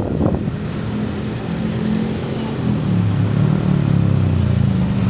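A motor vehicle's engine running with a low steady hum that comes in about a second in and grows louder toward the end, over steady background noise.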